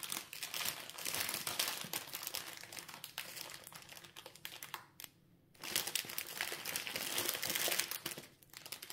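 Small plastic bags of diamond-painting drills crinkling and rustling as they are rummaged through in search of one colour, with a short pause about five seconds in.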